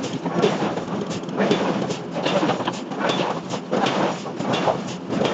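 Heavy forging machinery running, with rapid, irregular metallic knocks, several a second, over a continuous clattering din.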